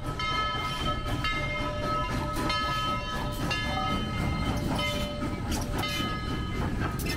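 Southern Railway 4501, a 2-8-2 steam locomotive, rolling past close by with a heavy rumble and frequent clanks. A steady, high sound of several notes at once is held over it throughout.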